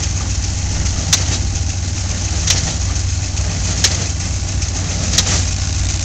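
Antique New Holland Model 76 hay baler running under load, its air-cooled Wisconsin V4 engine droning steadily. A sharp click comes about every second and a half.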